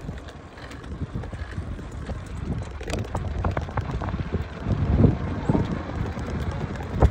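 Wind buffeting the microphone on a moving bicycle ride: an uneven low rumble with scattered knocks, loudest about five seconds in and again near the end.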